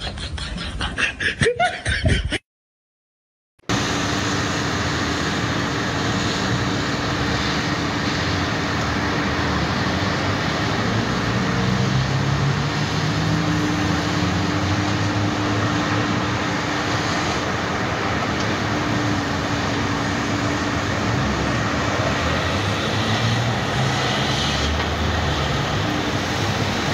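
Diesel engine of a JCB wheeled excavator running steadily while it works, a constant mechanical drone with a low held hum, after a second of silence about two seconds in.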